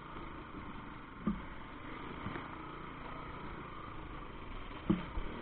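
Bajaj Pulsar NS200's single-cylinder engine running steadily at low speed, with two short knocks, about a second in and near the end.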